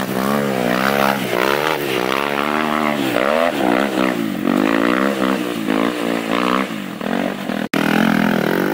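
Dirt bike engine revving hard, its pitch rising and falling over and over as the throttle is worked.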